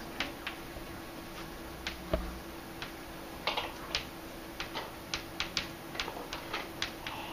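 Chalk on a blackboard as words are written: irregular sharp taps and short scratchy strokes, some in quick clusters, with one low thump about two seconds in, over a faint steady hum.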